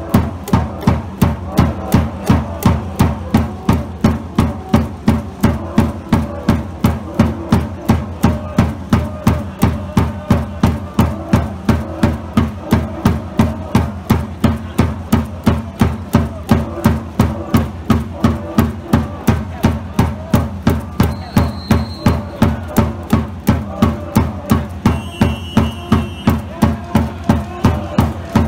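Spectators' cheering section beating out a steady rhythm, a little over two beats a second, over crowd noise.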